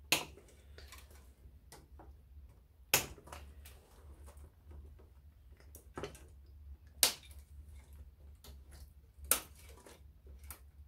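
Side cutters snipping through insulated wires in a Grundig TK-121 reel-to-reel tape recorder's chassis: about five sharp snaps, spaced one to three seconds apart, with fainter clicks of the cutters and wires in between.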